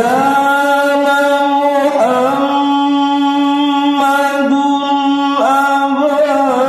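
A male qari reciting the Qur'an melodically (tilawah), holding long sustained notes and adding small ornamental turns between them. A short break in the line comes about five seconds in, and a new held phrase starts after it.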